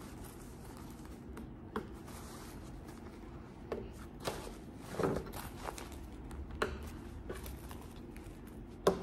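Occasional rustles and crinkles of tissue paper being folded and pressed around a jacket by hand.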